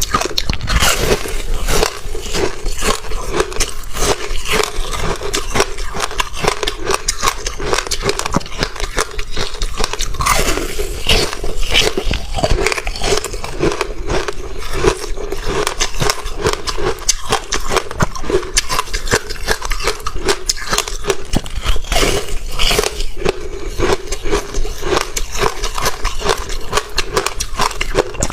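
Close-miked crunching and chewing of frozen passion-fruit ice: a continuous run of crackling crunches and bites.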